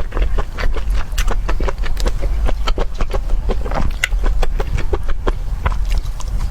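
Rapid, irregular clicking and knocking, several strokes a second, over a steady low hum.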